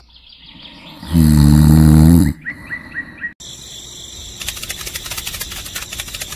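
Cartoon sound effects. About a second in comes a loud, low snore lasting about a second, then a quick run of about five short rising whistles. After that comes rapid, even clicking, like scurrying cartoon footsteps.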